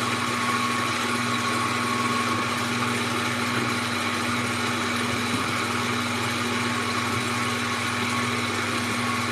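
Electric stand mixer running steadily with a constant motor whine, beating egg white protein powder and water in its stainless-steel bowl.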